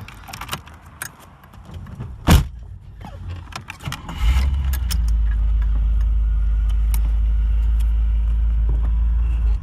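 Clicks and one loud clunk from the 1982 Camaro Z28's zip-tied shifter and cabin as it is put into a forward gear. About four seconds in, a loud, steady low rumble from the car begins and holds until it cuts off near the end.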